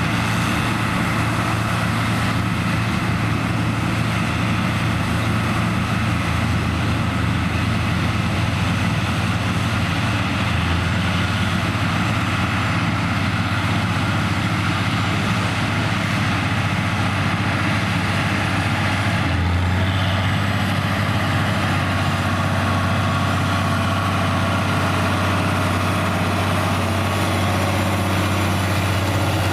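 Heavy farm diesel machinery running steadily at a corn harvest, a constant low engine hum. The pitch steps slightly about ten and twenty seconds in.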